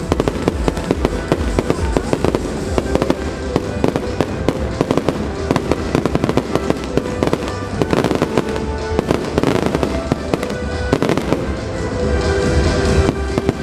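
Aerial fireworks bursting in rapid succession, a dense barrage of bangs and crackling, with the show's music playing alongside. Near the end the bangs thin out and the music comes through more clearly.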